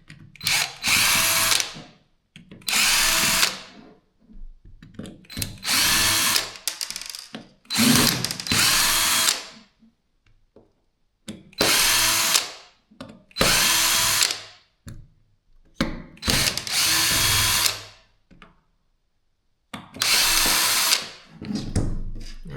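A cordless power drill/driver run in about nine short bursts, each lasting a second or so, backing out the screws that hold a cordless drill's housing together.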